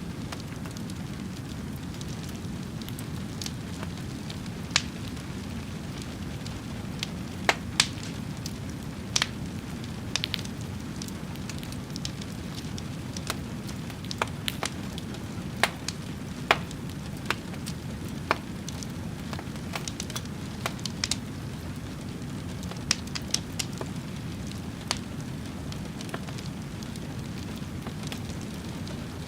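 Fire crackling: sharp pops at irregular intervals, several a second at times, over a steady low rumble of flame.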